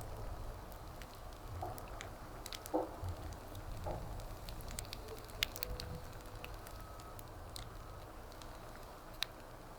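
Wood fire crackling, with scattered sharp pops from the burning wood, the strongest about halfway through and another near the end.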